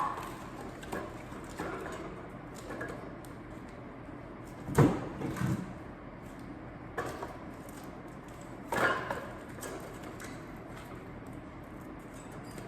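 Firewood being handled and dropped: scattered wooden knocks and clunks, the loudest about five and nine seconds in, over a steady background hum.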